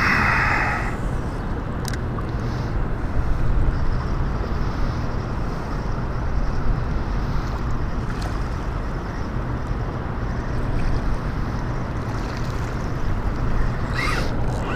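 Steady rush of fast-flowing dam tailwater, with wind rumbling on the microphone.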